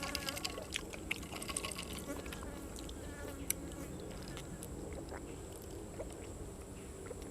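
A person chewing and crunching food close to the microphone, with scattered sharp clicks of bites and crunches, one louder click about three and a half seconds in.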